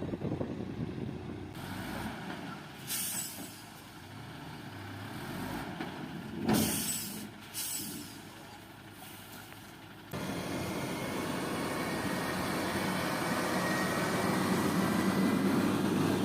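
Heavy truck with several short air-brake hisses, the loudest about six and a half seconds in. About ten seconds in, a steady, louder truck engine sound starts abruptly.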